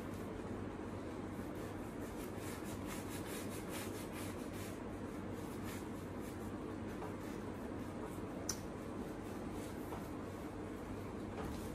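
A flat paintbrush scrubbing paint onto a canvas in repeated short strokes, over a steady low room hum. A single sharp click about two thirds of the way through.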